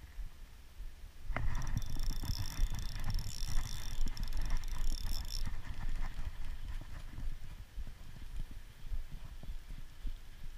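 Fishing line hissing and whirring off a spinning reel's spool during a long cast. It starts with a sharp click about a second in, lasts about four seconds, then stops. Irregular low knocks and rumble of handling run underneath and carry on after the line stops.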